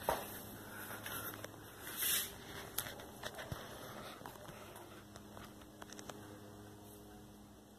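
Old Loren Sid four-blade ceiling fan running with a faint steady hum. Over it, a rustle about two seconds in and a few light clicks come from the camera being handled.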